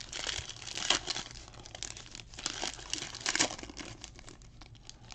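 Foil wrapper of a Panini Prizm football card pack crinkling and tearing as it is pulled open by hand, in irregular crackles.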